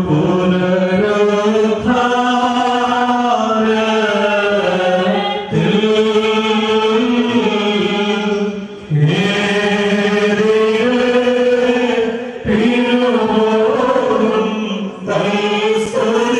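Malankara Catholic funeral chant sung slowly in long, drawn-out held notes. The phrases break briefly for breath every few seconds.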